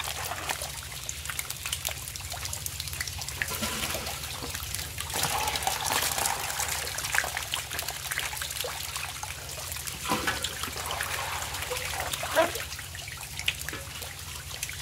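Water splashing and trickling in a shallow tank crowded with live deshi catfish as they thrash and are scooped out with a plastic scoop. Many small sharp splashes run throughout, one louder splash comes near the end, and a steady low hum lies underneath.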